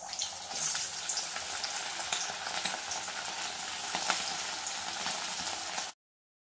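Marinated chicken pieces deep-frying in very hot oil in a kadhai: a steady sizzle full of small crackles and pops, starting as the first piece goes in and cutting off suddenly about six seconds in.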